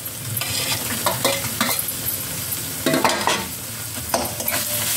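Metal spatula (khunti) scraping and stirring minced chicken in a metal kadai, with irregular scrapes over a frying sizzle. Chopped green capsicum is tipped in and mixed through.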